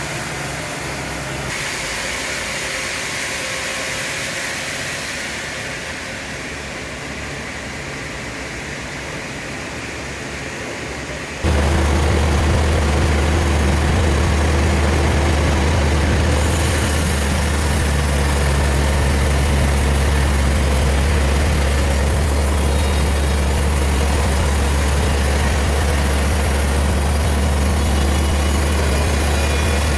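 Heavy sawmill machinery running steadily, a dense noise with no clear tone. About eleven seconds in it cuts abruptly to a louder, deep steady hum.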